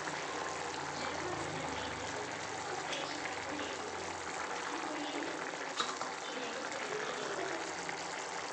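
Thick coconut-gravy egg curry boiling hard in a pan: a steady bubbling and plopping. A single light click about six seconds in.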